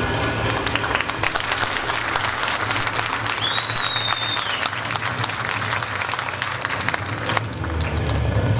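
Audience applauding, dense steady clapping over a low steady hum, with one short whistle about halfway through.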